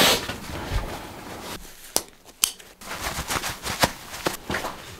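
Loose broken slate rubble clinking and knocking under footsteps and hands: a run of irregular sharp clicks, a few louder knocks among them, with a short rustle at the start.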